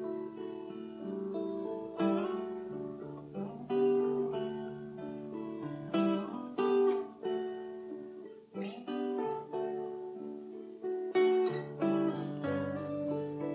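Instrumental acoustic guitar and mandolin music: slow chords strummed on the guitar about every two seconds, with the mandolin's picked notes alongside.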